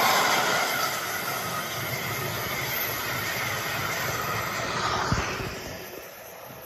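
LEGO passenger train running past on plastic track, a steady mechanical whirr and rattle from its motor and wheels, with a single click about five seconds in. The sound fades as the train moves away.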